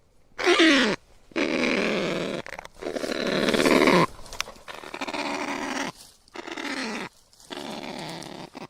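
A series of six loud animal calls, each about a second long with short gaps between, several sliding down in pitch.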